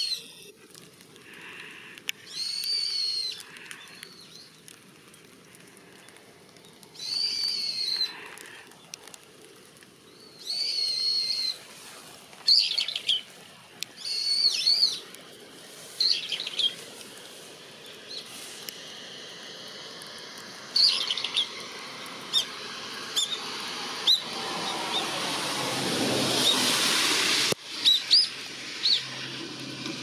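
Black kites calling: a series of long, arched whistled calls, each about a second long, followed by shorter sharp notes. Late on, a rush of noise swells and then cuts off suddenly.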